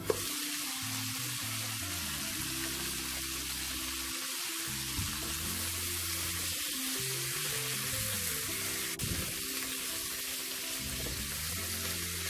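Salted pork and mangetout sizzling in a hot wok as they are stir-fried with a wooden spatula; the sizzle starts suddenly as the lid comes off and then holds steady. Background music plays underneath.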